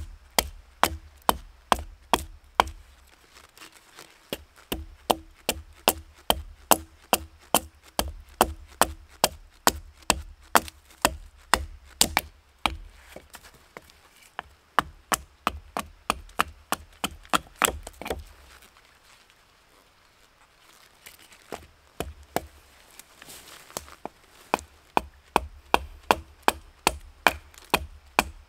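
Hatchet chopping into a wooden spoon blank braced against a log, quick sharp strikes at about two a second. The strikes pause for a few seconds about two-thirds of the way through, then pick up again.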